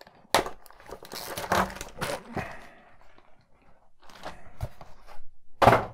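Clear plastic polybag crinkling and crackling in irregular bursts as it is pulled free of a cardboard box insert, with a louder sharp noise near the end.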